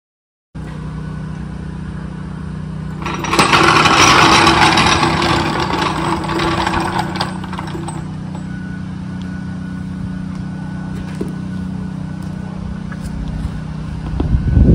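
Steel floor jack being pulled on its wheels across a concrete driveway, a loud rough rolling rattle for about four seconds, over a steady low hum that runs throughout. A short clack comes near the end as the jack is set in place.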